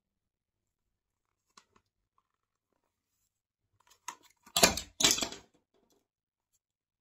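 Plastic figure parts and a round plastic stand being handled close to the microphone. A couple of faint clicks come first, then about four seconds in a short, loud burst of scraping and crunching plastic comes twice in quick succession.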